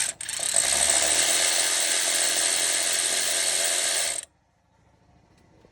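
DeWalt electric ratchet spinning out a 12 mm bolt. A short blip is followed by a steady run of about four seconds, which stops abruptly.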